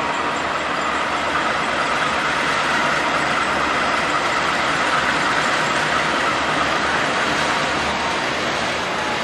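Two GE U18C diesel-electric locomotives, re-engined with turbocharged GE 7FDL diesels, running steadily as they pull a passenger train slowly toward the listener.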